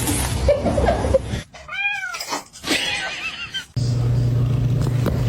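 A cat meowing: one clear, arching meow about two seconds in, then a few shorter cries. Noise comes before it, and after an abrupt change there is a steady low hum.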